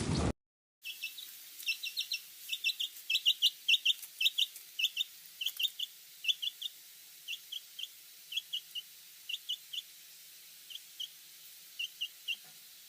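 A bird giving short, high chirps in quick runs of two to four, repeated many times.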